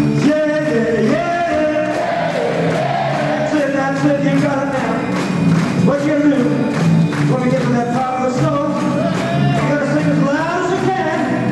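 Live rock and roll band playing with singing over a steady drum beat.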